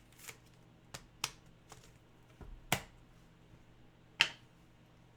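Trading cards being handled and shuffled through, giving a series of short clicks and snaps of card stock, with two sharper snaps near the middle and about four seconds in.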